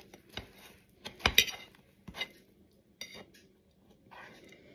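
Cutlery clinking and knocking against a plate as a slice of cake is served: four separate clinks, the loudest about a second and a half in.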